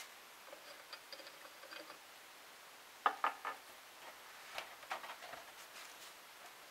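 Small clicks and knocks from handling a model flame-eater engine's brass spirit burner and a plastic fuel bottle: a faint squeak early, three sharp clicks about three seconds in, then a scatter of lighter clicks.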